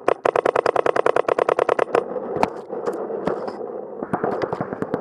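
Paintball marker firing a rapid string of shots, about thirteen a second, for the first two seconds, then only scattered single shots over a steady noisy background.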